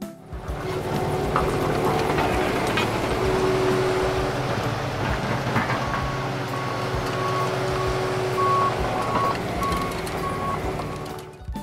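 Front loader's diesel engine running steadily. From about halfway through, its reversing alarm beeps repeatedly, roughly one beep every half second or so.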